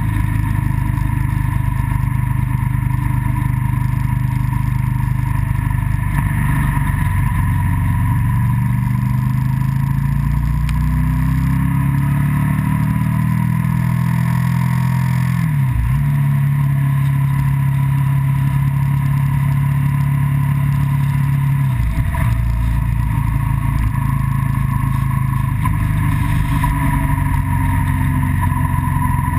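Onboard sound of the vehicle's engine pulling along the road, with steady road and wind noise. The engine note rises as it accelerates, then dips sharply and briefly twice, about halfway and about three quarters through, as at gear changes.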